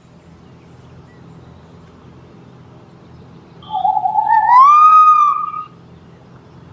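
A single animal call about midway, rising in pitch and then held for about two seconds, over a low steady hum.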